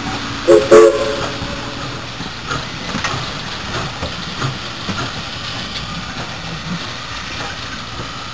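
Southern Railway 4501, a 2-8-2 Mikado steam locomotive, gives two short, loud toots on its steam whistle about a second in. Then comes the steady rumble of the engine rolling past, with irregular clanks and knocks from its running gear.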